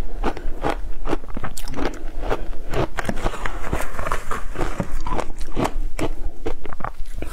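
Frozen matcha ice being crunched between the teeth in quick, irregular bites, several a second. Around the middle, a metal spoon scrapes and digs into the frozen ice in the glass bowl.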